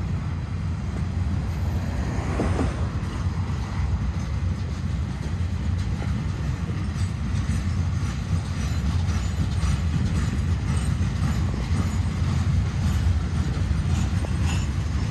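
Freight rail train loaded with long welded rail strands rolling past: a steady low rumble, with the wheels ticking over the track, more often in the second half.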